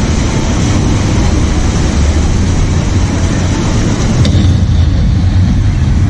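Whitewater rushing through a river-raft ride's rapids channel: a loud, steady rush with a deep rumble underneath.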